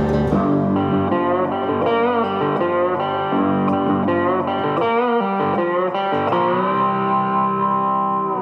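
Background music: a guitar-led instrumental whose notes slide and bend in pitch.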